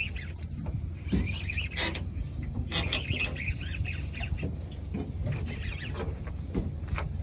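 Steady low rumble of the boat's engine idling, with scattered short high squeaks and a few sharp clicks over it while a fish is being fought on rod and reel.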